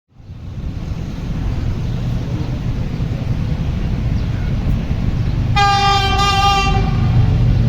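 Diesel-electric locomotive approaching with a low rumble that grows louder, then sounding its air horn in one blast of about a second, a little past halfway.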